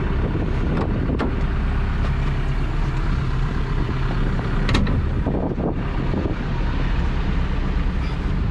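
Hyundai excavator's Cummins diesel engine idling steadily, with a few sharp clicks from the cab door latch and hinges as the door is opened.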